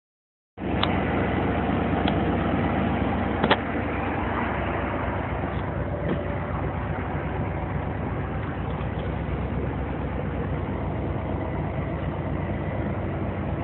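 Truck engine idling steadily, with a few sharp clicks in the first few seconds.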